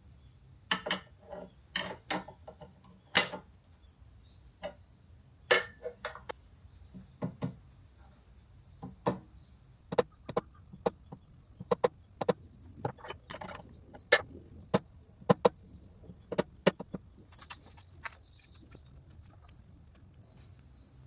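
A couple of dozen irregular clicks and knocks of things being handled and set down, some sharp, most light, the loudest about three seconds in.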